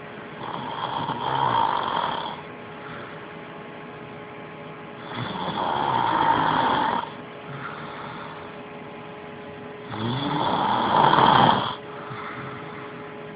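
A man snoring: three loud snores, each about two seconds long, roughly every five seconds, with quieter breathing between.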